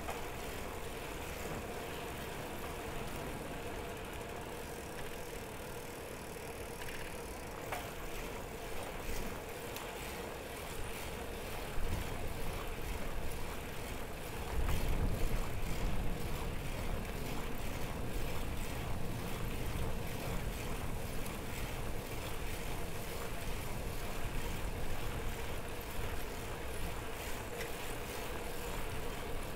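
City bicycle being ridden: steady tyre and road noise with light rattling and a steady hum underneath. There is a knock about twelve seconds in, followed a few seconds later by a louder low rumble.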